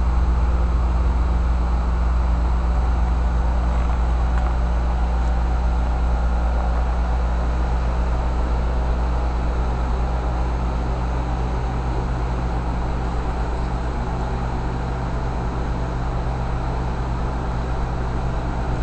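A steady low mechanical hum and rumble, easing a little in level partway through.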